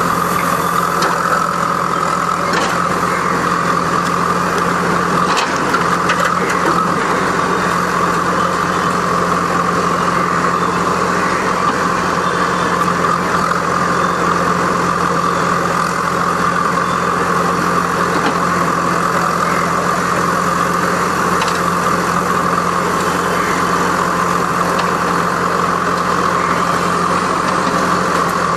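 Heavy diesel engine of a lattice-boom crane running steadily during a lift, a constant low drone with a few faint clicks and knocks over it.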